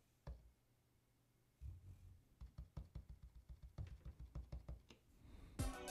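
Fingers tapping the rubber pads of a Native Instruments Maschine controller: faint soft thuds, one on its own and then a quick run of taps at about four or five a second, as a snare roll is played in.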